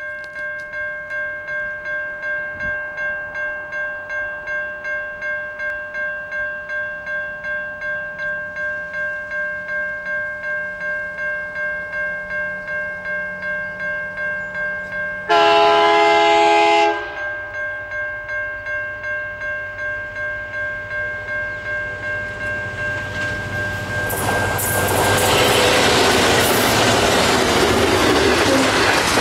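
Level crossing warning bell ringing steadily, about two strokes a second, as an SCT freight train hauled by two diesel-electric locomotives bears down at about 100 km/h. About halfway through, the locomotive's horn sounds once for about a second and a half. Near the end, the rising noise of the locomotives and a long rake of freight wagons rushing past drowns out the bell.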